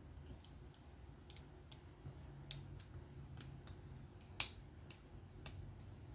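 Scattered light clicks of small folding-knife parts being fitted together by hand as the knife is reassembled, with one sharper click about four and a half seconds in.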